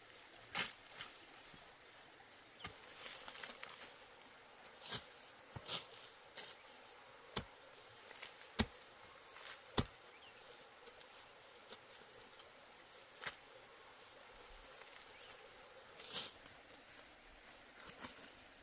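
Irregular sharp knocks and clicks, about a dozen spread out, with light rustling between them: hands-on harvest work.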